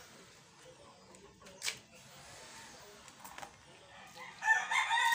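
A rooster starts crowing loudly near the end, a long call of several pitched notes.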